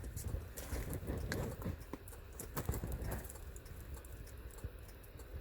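Scattered light clicks and taps of parts and tools being handled close to the microphone, over a low rumble.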